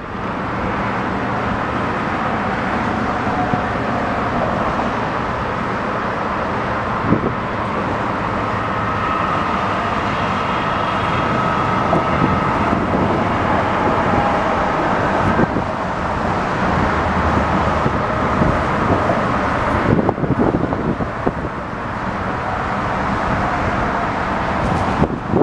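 Tugboat's diesel engine running steadily as it pushes a barge, a low hum under a steady wash of outdoor noise.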